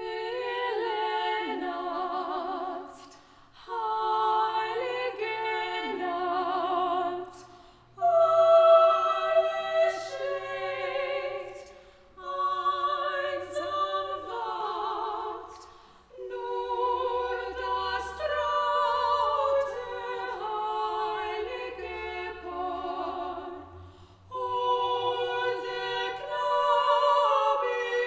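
Female voices, sopranos and a mezzo-soprano, singing together in harmony with vibrato, in phrases of a few seconds separated by brief breaths.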